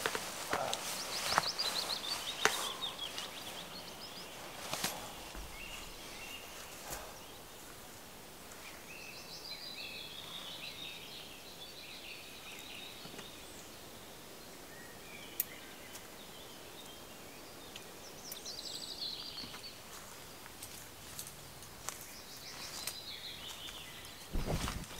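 Songbirds singing in woodland: warbling, chirping phrases that come and go in several spells. A few sharp clicks in the first seconds, and a short low rustle near the end.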